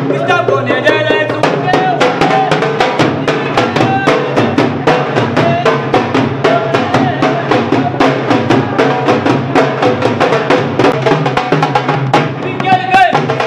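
Dhol drums beaten with sticks in a fast, driving rhythm, with a djembe played by hand among them. Voices shout and sing over the drumming.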